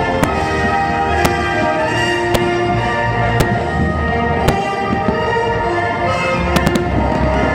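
Fireworks going off in sharp bangs, about one a second, with a quick run of three near the end, over loud music with sustained notes.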